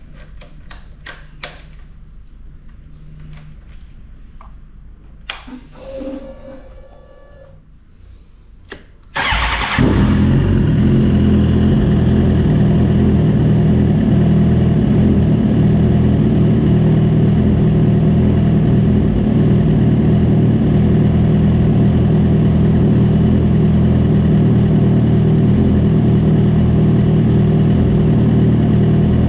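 A few clicks and a short whir, then about nine seconds in a four-cylinder motorcycle engine starts and settles into a steady idle. It is being restarted to check whether its idle speed oscillates.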